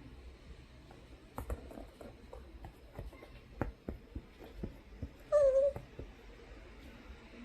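Toy poodle giving one short, loud, wavering whine about five seconds in, a begging cry to be let up onto the sofa, after a few light scattered clicks and taps.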